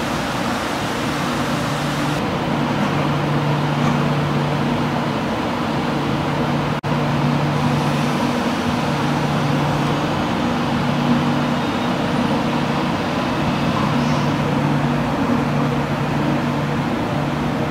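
KTX-I high-speed train rolling slowly through a covered station: a steady rumble and hiss of the train's machinery, with a low hum that swells and fades every few seconds.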